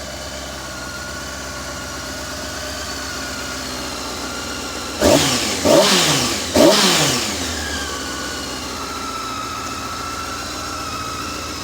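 Honda CBR600F Sport's inline-four engine on its stock exhaust, idling steadily, then revved with three quick throttle blips a little under a second apart about halfway through, each pitch falling back before it settles to idle again.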